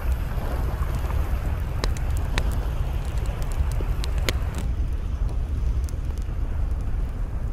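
Wood campfire crackling, with a few sharp pops over a steady low rumble of wind on the microphone.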